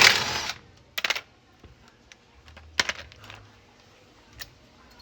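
Socket wrench working the screws on a washing machine's bottom cover: a short scraping burst at the start, then a few scattered metallic clicks.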